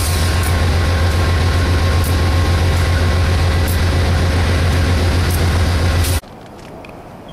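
Diesel locomotive of a standing passenger train running with a loud, steady low hum. It cuts off suddenly about six seconds in, leaving faint outdoor ambience.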